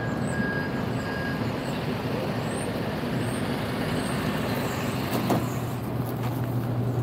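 City street traffic: a steady rumble of vehicles on the road below, with a low engine hum that grows stronger about five seconds in.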